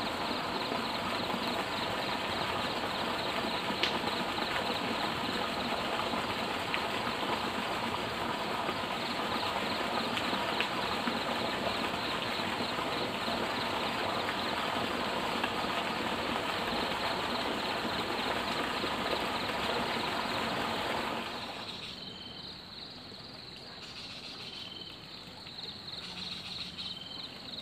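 Steady rushing water noise that cuts off abruptly about three-quarters of the way through, leaving a quieter background with a few short, high chirps.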